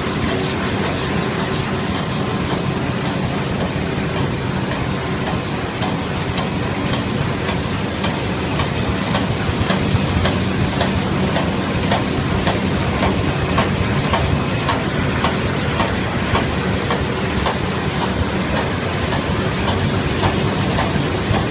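Yii Lee film laminating machine running: a steady mechanical noise with a faint hum and rapid, irregular clicking that becomes denser partway through.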